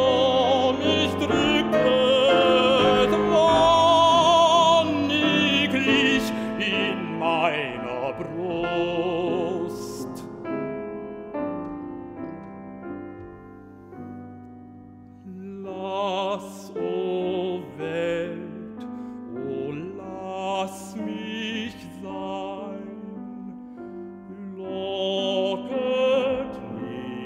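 Baritone singing a German art song with piano accompaniment. The voice is loudest at first, with wide vibrato, then drops out for a soft piano-only passage in the middle. About halfway through it comes back more quietly over the piano.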